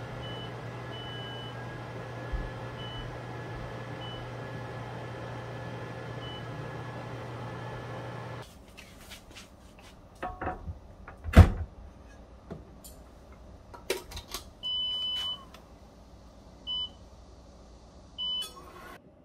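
Corelle Seca slim induction cooktop running under a cast-iron pot with a steady electrical hum, its touch controls giving short high beeps as the slider is pressed. After about eight seconds the hum stops; a grill plate is set down on a second unit with a few knocks, one of them loud, and its touch controls beep three times as it is switched on and set.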